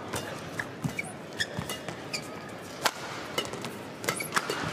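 Badminton rally: sharp cracks of rackets striking the shuttlecock, several hits about a second apart with the loudest near the middle, along with short squeaks of court shoes.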